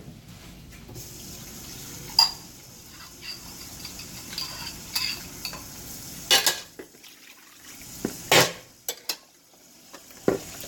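Metal spoon and cookware clinking and scraping, with several sharp clanks, over the faint steady hiss of a pot of chicken curry cooking on the stove.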